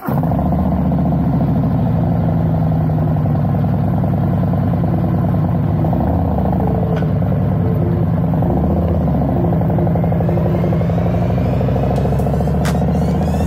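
2020 Harley-Davidson Electra Glide Standard's Milwaukee-Eight 107 V-twin running at a steady idle, then rising in pitch as the bike pulls away near the end.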